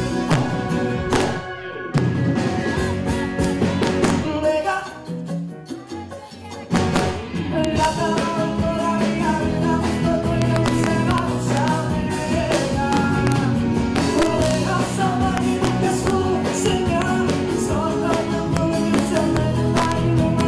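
Live sertanejo pop band playing at a stage soundcheck, with drums and a singing voice over the band. The music drops to a thin, quieter passage about four seconds in, and the full band comes back in a couple of seconds later.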